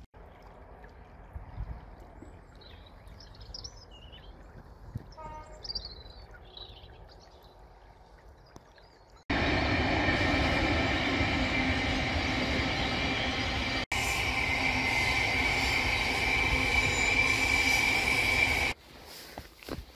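Faint bird chirps at first. About nine seconds in, a passing train comes in suddenly and loud, with a rumble and a high steady wheel squeal. It cuts out abruptly about a second before the end, with a split-second break midway.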